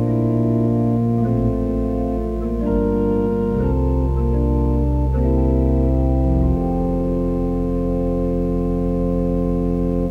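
Organ playing a slow hymn tune in held chords over a moving bass line, with no singing. About two-thirds of the way through it settles on a long sustained chord, which is released at the end and fades away.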